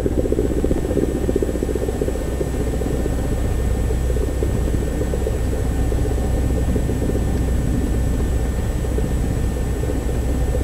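Single-engine light airplane's piston engine and propeller running steadily at low taxi power, heard inside the cockpit. A fast, even pulse runs through the steady engine sound.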